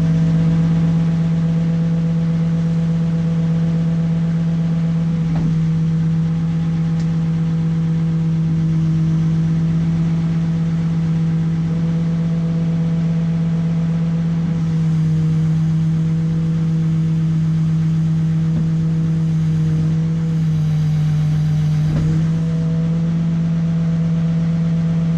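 Engine of the heavy lifting machine, likely a backhoe, running steadily as it holds and moves a suspended air-conditioning unit. A constant low drone carries higher tones that shift up and down a few times.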